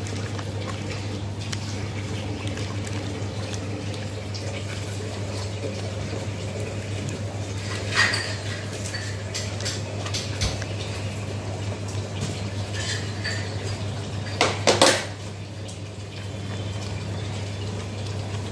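A hand squishing and mixing a thick yogurt-and-gram-flour masala in a bowl, with scattered light knocks against the bowl and louder clinks about 8 seconds in and again around 15 seconds in, over a steady low hum.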